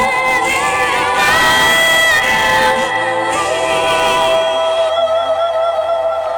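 Live busking music: voices singing in harmony, ending on a long held note over the last few seconds.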